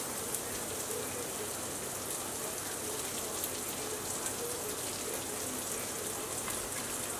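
Oil and butter sizzling steadily in a frying pan where garlic, green chillies and green onions are sautéing, as sliced red onions are tipped in.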